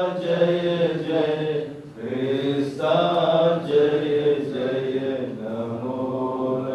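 A group of voices chanting a prayer in unison, the notes held and changing pitch in long phrases.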